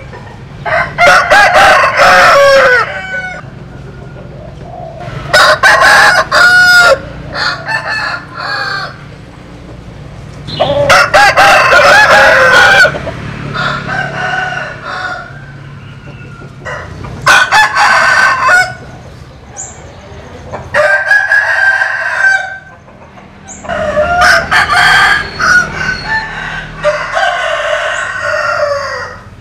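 Roosters of a Vietnamese-American crossbred 'butterfly' chicken flock crowing in turn, about seven crows spaced a few seconds apart, with softer clucking between them.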